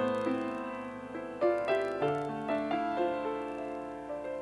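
Background piano music, notes and chords struck and left to ring and fade.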